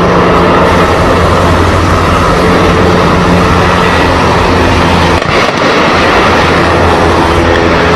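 Loud, steady engine noise with a constant low drone, holding level while the locomotive drops from the bridge.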